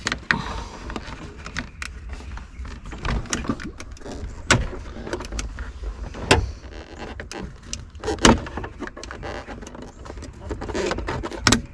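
Plastic clicks, knocks and rattling as a wiring-harness connector is worked loose from a steering-column multifunction switch, with a few louder snaps at irregular intervals.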